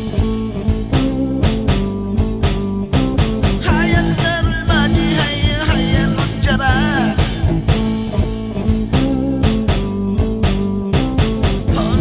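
Psychedelic rock band recording: a steady drum beat and sustained bass and chords under a lead line whose notes bend and waver through the middle of the passage.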